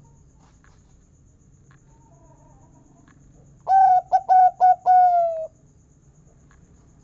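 Zebra dove (perkutut) cooing once about halfway through: a quick run of short notes ending in a longer, slightly falling 'kung' note.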